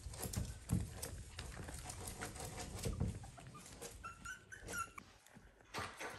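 Maltese puppies scuffling about on foam mats and at a food bowl, with soft knocks and rustling throughout. A short high puppy whimper comes about four seconds in.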